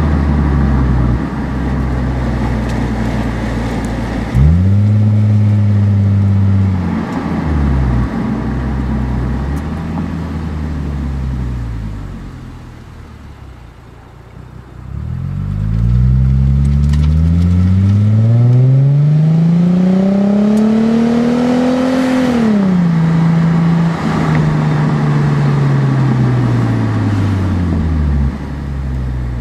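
A 2006 Lexus IS250's V6 exhaust note heard at the tailpipe through a Greddy SE cat-back system while driving. The pitch rises and falls with the revs, drops low and quieter for a few seconds around the middle, then climbs in one long pull before falling sharply and easing off.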